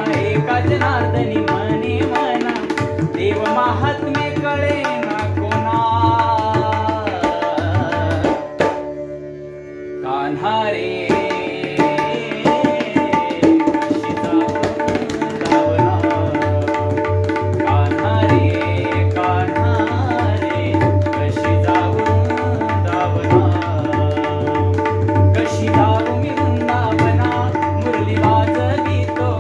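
Indian song: a voice singing over tabla and a steady held drone, with a short break in the music about nine seconds in.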